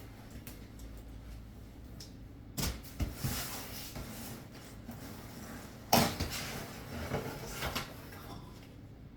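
Packaging being cut into and handled by hand: rustling and scraping, with sudden knocks about three seconds in and a louder one about six seconds in.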